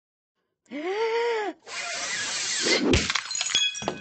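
Glass breaking: a crash about three seconds in, followed by ringing and clinking as the pieces settle. Just before it come a short call that rises and falls in pitch and a rushing noise.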